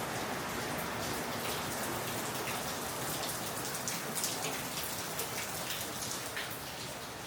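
Steady rain falling, with individual drops striking close by, most thickly in the middle stretch.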